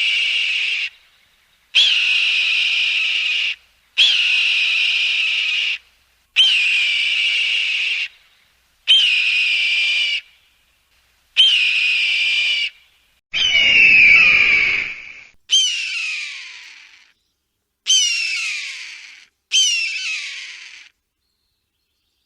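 Hawk crying: about ten long screams, one roughly every two seconds. Each starts with a quick upward flick and then holds. The last few slide down in pitch and trail off.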